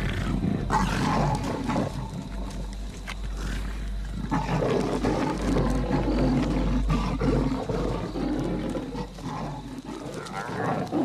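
Big cats growling and snarling in a fight: a cornered mother leopard under attack.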